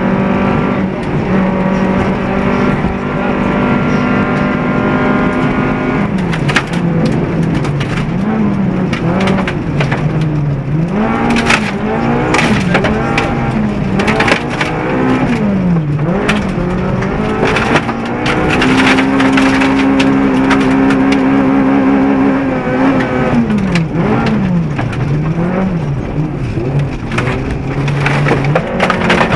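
Honda Civic VTi 1.6 rally car's 1.6-litre VTEC four-cylinder engine, heard from inside the cabin at full speed on a gravel stage. It is held at high revs for the first several seconds and again for a few seconds past the middle, and in between and near the end it rises and falls quickly through gear changes, lifts and corners. Sharp clicks and rattles come from gravel striking the car.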